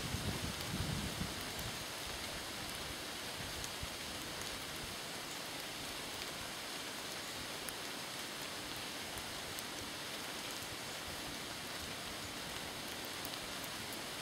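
Steady hiss of light rain falling on the leaves of the woods, with a few low bumps in the first second or so.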